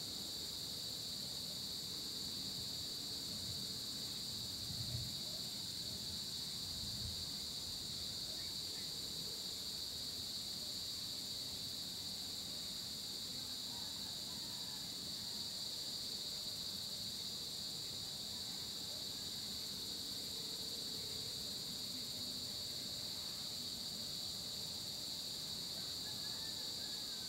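Steady chorus of insects, a continuous high-pitched shrill with no breaks, with a couple of faint low thumps about five and seven seconds in.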